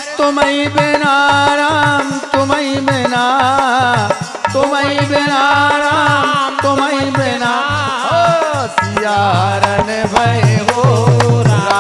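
Male voice singing long, drawn-out wavering notes in a Bundeli devi bhagat folk song, over a steady beat of drums and handclaps.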